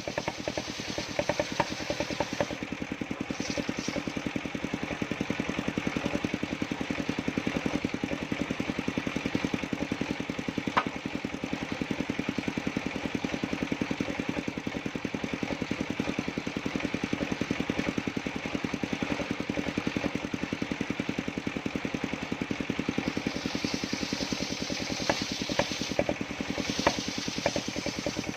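Engine driving a sawmill circular saw (serkel) running steadily, with a fast, even pulsing beat; a higher hiss rises in the last few seconds.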